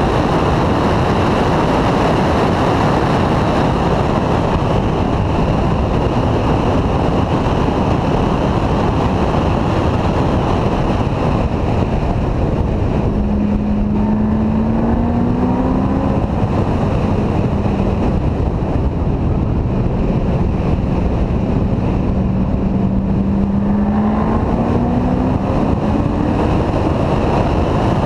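Wind rushing over the microphone as a C6 Corvette runs at track speed, with tyre and road noise underneath. The Corvette's V8 engine note climbs under acceleration twice, about halfway through and again near the end.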